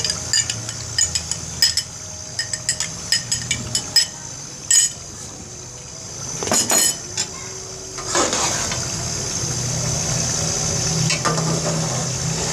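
A metal spoon clinking and tapping against a cup as yogurt is scraped out into the pot, many quick ticks in the first few seconds. Then a scrape and stirring in the steel pot, over the steady sizzle of the meat and masala cooking on high flame.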